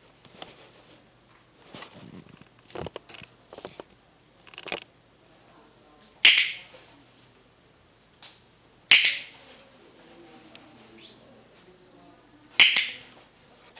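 Hand-held dog-training clicker clicking sharply three times, a few seconds apart, marking the dog's behaviour, with quieter irregular taps between.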